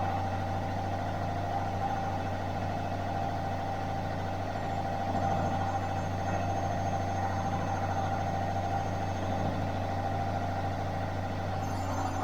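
Bosch washing machine running steadily mid-cycle: a constant low hum with a steady mid-pitched whine over it.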